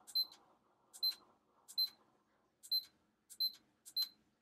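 Sainlogic weather station console beeping at each press of its set button as it steps through alarm settings: six short, high beeps, a little under a second apart.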